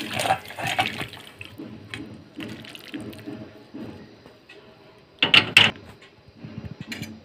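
Thick fish curry being poured from a metal kadai into a steel bowl and worked out with a metal spatula, a wet pouring and slopping sound. Two loud scraping noises come about five seconds in.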